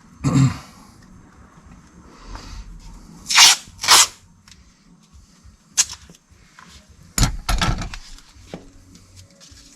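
Adhesive tape pulled off the roll and torn twice in quick succession, about half a second apart, then a sharp click and a thump with rustling as the strip is pressed on to hold the door glass up.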